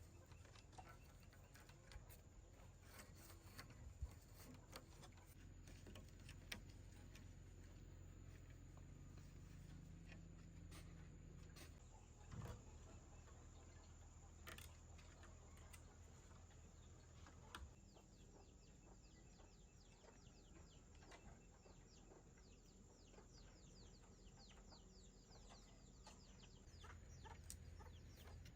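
Near silence: faint outdoor background with a few scattered small knocks and, in the second half, faint rapid high chirping.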